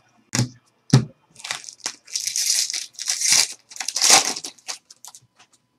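Two short knocks, then a trading-card pack wrapper torn open and crinkled in the hands, a dense crackling that lasts about four seconds.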